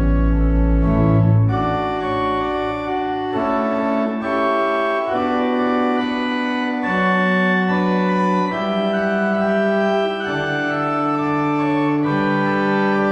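Organ playing slow sustained chords as a closing voluntary after the blessing. Deep pedal notes die away in the first second and a half, then the chords change every second or two.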